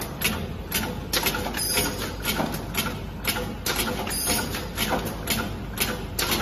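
Automatic liquid filling machine running, its mechanisms clacking irregularly about three times a second over a steady low hum.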